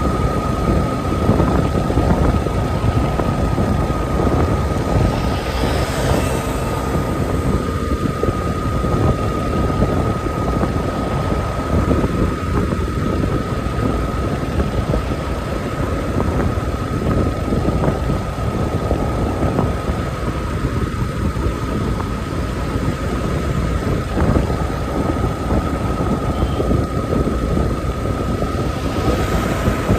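Yamaha motorcycle cruising steadily at about 48 km/h: wind rushing and buffeting over the handlebar-mounted phone's microphone, with the bike's engine running underneath and a thin steady high-pitched tone. A brief brighter hiss comes about six seconds in.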